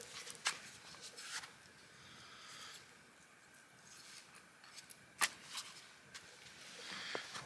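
Light handling sounds of a knife and its leather sheath: a few sharp clicks, the loudest about five seconds in, over faint rustling.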